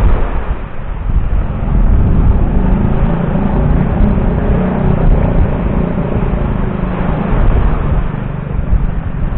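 Strong wind rumbling on the microphone, with an engine hum that swells up about two seconds in and fades near the end.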